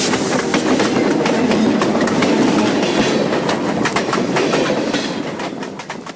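Freight train rolling by, its wheels clicking rapidly over rail joints under a steady rumble of cars; it fades near the end.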